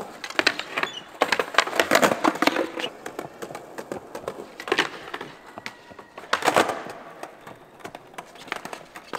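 Skateboards rolling and clattering on pavement: quick clicks of the wheels over the paving-slab joints, with knocks and slaps of the boards in three bursts. The busiest are about one to three seconds in and around six and a half seconds.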